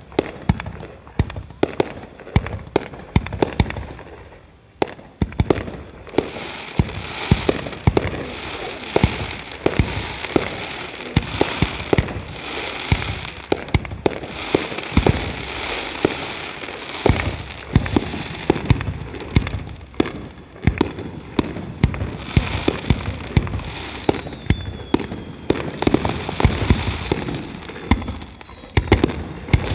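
Aerial firework shells bursting in rapid succession, many sharp booms tumbling over one another over a steady crackling hiss, with a short lull about four seconds in before the barrage thickens.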